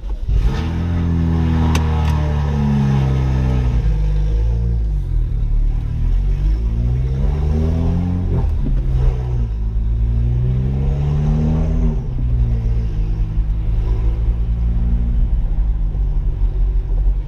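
BMW 135i's turbocharged inline-six, heard from inside the cabin, accelerating: the engine note climbs and drops back several times as the manual gearbox is shifted up, then holds steady near the end.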